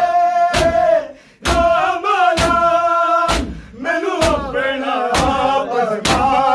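Men's voices chanting a Punjabi noha in long held notes, cut by sharp, loud chest beats of matam from the crowd at a steady pace of about one a second. The singing breaks off briefly about a second in.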